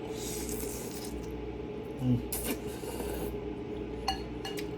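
A person eating noodles: soft rasping, rustling noises and two light clicks near the end, likely of a utensil, over a steady low hum.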